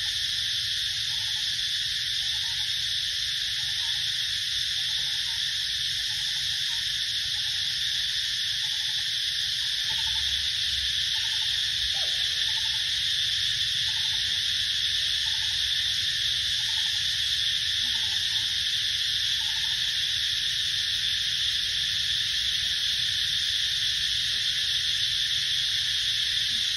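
Steady, unbroken high-pitched insect chorus filling the forest. Underneath, faint short calls repeat about twice a second, fading out about two-thirds of the way through.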